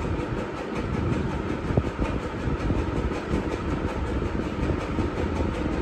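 Steady low rumbling background noise with no clear rhythm, and one faint tick about two seconds in.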